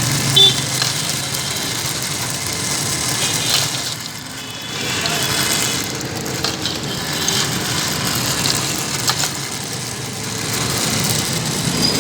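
Busy roadside street noise: vehicle engines running and passing, with a steady hum of traffic.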